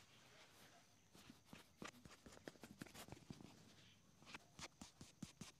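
Faint handling sounds from a black leather boot being worked by hand during a shoe shine: scattered light taps and rubbing on the leather, coming more often in the second half.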